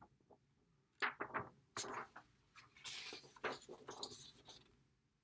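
Paper signs rustling and flapping as they are handled and swapped, in several short bursts.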